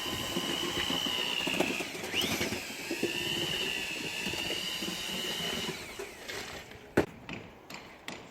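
A small high-revving motor whining over a rumble. Its pitch dips and recovers about two seconds in, and the whine fades out about six seconds in. A sharp knock follows about a second later.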